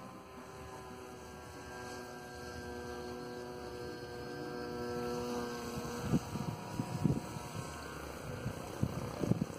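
Electric motor and propeller of a 98 cm Zagi flying-wing RC plane running as a steady multi-tone hum, growing louder as the plane comes over and easing off after about five seconds. Low thumps of wind on the microphone break in over the last few seconds.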